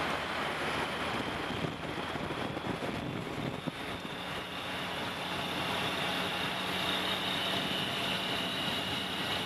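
Motor vehicle engine running steadily under a rushing noise, with a high steady whine that grows stronger about halfway through.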